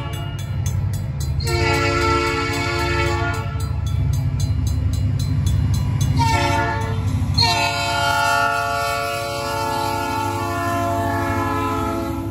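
A CN diesel locomotive's air horn sounds the grade-crossing signal: the end of one blast, then a long blast, a short one, and a final long blast, over the low rumble of the approaching locomotives. The crossing's Safetran mechanical bell rings with rapid, even strikes underneath.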